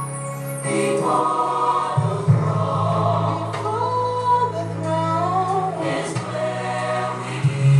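Gospel music: a choir singing a slow melody over a sustained bass line.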